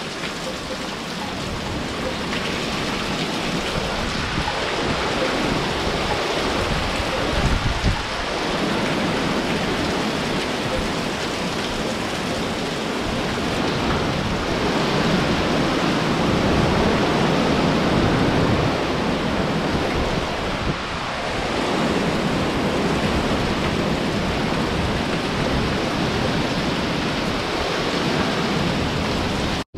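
Hurricane Ida's heavy rain and wind, a steady dense rush that swells louder and eases off in gusts, loudest around the middle.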